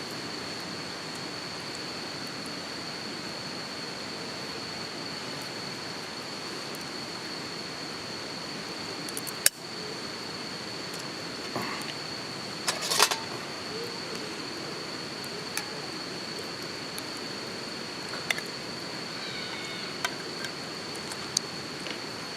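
Insects singing one steady high-pitched note over a constant hiss. Sharp clicks come now and then, with a loud one about nine seconds in and a short cluster around thirteen seconds.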